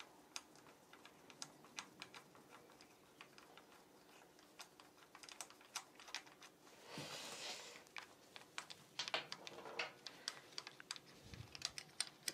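Light, irregular metallic clicks and taps of small steel nuts and washers as loosened cylinder-head nuts are spun off their studs by hand on a 50cc scooter engine, with a short scraping rustle about seven seconds in.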